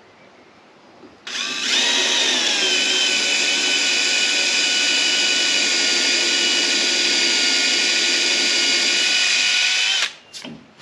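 Cordless DeWalt drill boring into a boat's transom. It spins up about a second in, dips slightly in pitch, then runs at a steady high whine for about eight seconds before stopping, with a brief rattle just after.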